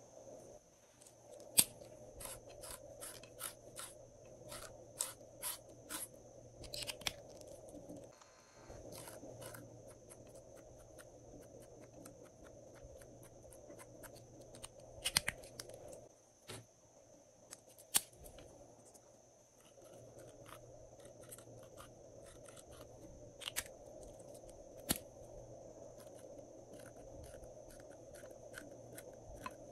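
Glossy slime being pressed and stretched by hand, giving runs of sharp clicks and pops of trapped air, with a few much louder snaps scattered through.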